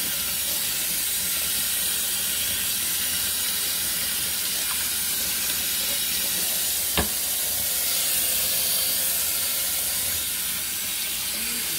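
Kitchen faucet running steadily, its stream splashing over bass fillets being rinsed by hand in a stainless steel sink. A single sharp knock about seven seconds in.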